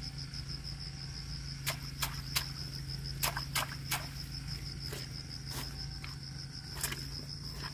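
Insect, cricket-like, trilling steadily at a high pitch in a fast pulse, with a handful of short sharp clicks or splashes about two to four seconds in and once more near the end.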